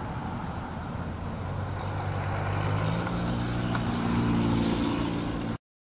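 A motor vehicle's engine running close by over a steady rumble of traffic-like noise. The engine note climbs in pitch and grows louder from about two seconds in, as the vehicle accelerates. The sound cuts off abruptly near the end.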